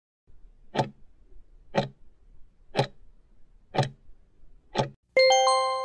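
Countdown-timer sound effect: five clock ticks, one a second, then a bell-like chime near the end that rings on and fades as the time runs out.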